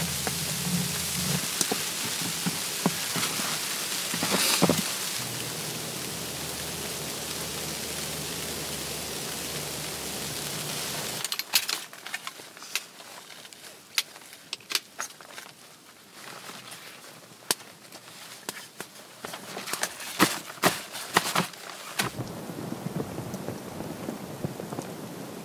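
A steady rushing hiss that stops abruptly about eleven seconds in. It is followed by a quieter stretch of scattered clicks, knocks and crackles as firewood is handled and fed into a small camp wood stove. Near the end the steady hiss returns.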